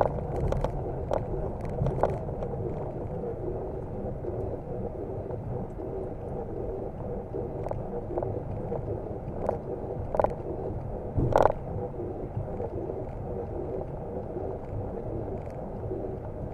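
Flight-deck noise of a Boeing 737NG rolling out on a wet runway in rain: a steady rumble. A few sharp knocks break through it, the loudest about eleven seconds in.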